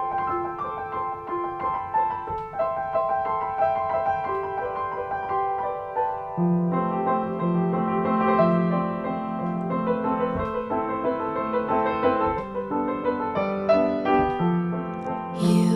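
Slow piano music: held notes and chords, with lower notes joining about six seconds in and a brief rushing swell near the end.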